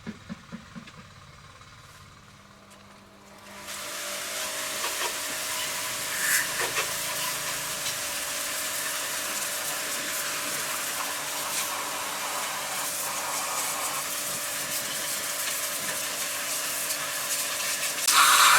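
A few short knocks, then a steady hiss that starts about three and a half seconds in and grows louder near the end.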